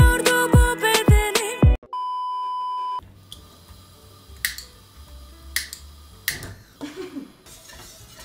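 A song with singing over a regular thumping beat stops abruptly, followed by a single steady high beep lasting about a second. After that there is only faint room sound with a few sharp clicks.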